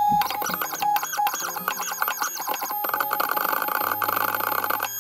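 The stepper motors of an xHorse Dolphin XP005L key machine whining in shifting tones, with a rapid stutter, as the decoder probe traces the blade of a HU162T Volkswagen key during A-axis decoding.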